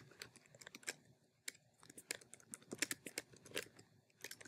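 Typing on a computer keyboard: quick, irregular keystroke clicks, several a second with short pauses between runs.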